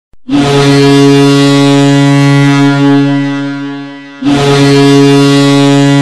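Ice hockey arena goal horn sounding two long, deep blasts. The first fades away after about three and a half seconds, and the second starts about four seconds in. It signals a home goal.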